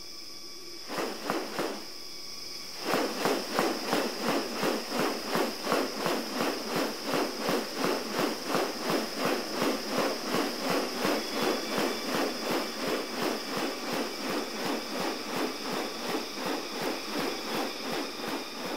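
Wild forest ambience: a steady high-pitched insect drone, joined about three seconds in by a rapid, evenly pulsed rasping series of about three pulses a second that keeps going until near the end.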